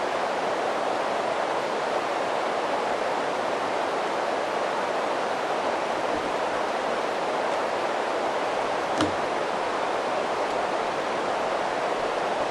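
Steady, even hiss from a cheap camcorder's faulty microphone, with a single small click about nine seconds in.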